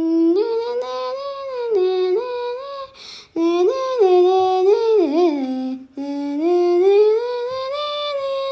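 A high voice singing the show's intro theme as a wordless tune: three phrases of long held notes that step up and down.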